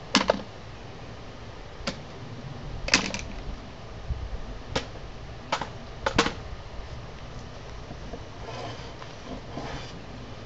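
Clamps being released and taken off a wooden bench top: a series of sharp clicks and clacks, some in quick doubles, spread over the first six seconds. Fainter rough strokes follow near the end.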